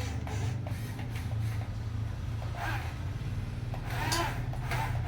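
Small electric motors and gearboxes of a remote-control toy running with a steady low hum, with a few short louder sounds over it about halfway through and near the end.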